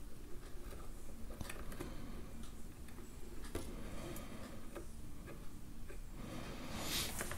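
Faint, irregular small clicks and crackles of rosin flux spitting as solder melts on a wire joint under a soldering iron tip. A soft hiss builds near the end.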